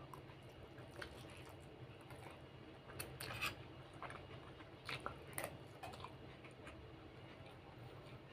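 A person eating instant noodles and rice: quiet chewing and mouth sounds, with a few short clicks and scrapes, the loudest about three seconds in, over a low steady hum.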